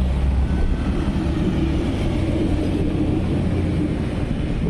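Motor scooter engine running as it passes close by, a steady low rumble.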